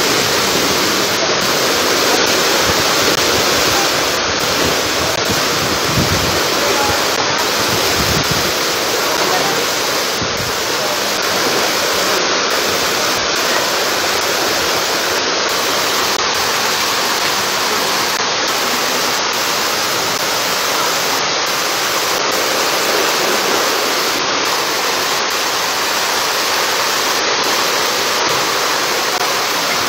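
Heavy rainstorm with floodwater running along a street: a loud, steady hiss of rain and rushing water.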